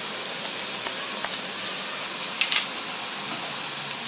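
Chayote and carrot stir-fry sizzling steadily in a wok, with a few faint clicks of a metal spoon as seasoning is sprinkled in.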